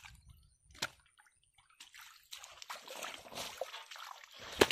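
Bare feet wading through shallow muddy pond water, sloshing and splashing in small irregular bursts, with one sharp, louder splash near the end.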